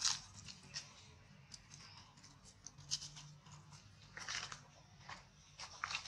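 Dry leaf litter crackling and crunching under macaques' hands and feet: scattered sharp crackles, with a denser cluster a little past the middle.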